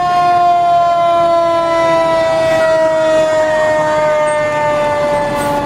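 Fire engine's mechanical siren given one quick wind-up, then winding down: a single loud wail whose pitch sinks slowly as the rotor coasts.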